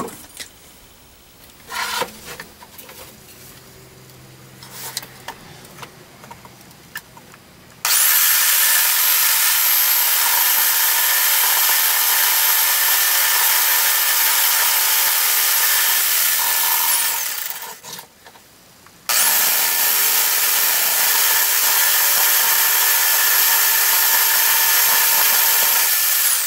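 Corded jigsaw cutting a triangular opening into a plastic shield boss. After a few faint handling knocks, the saw starts about eight seconds in and cuts steadily with a high whine for about nine seconds, winds down, then starts again about two seconds later and cuts until near the end.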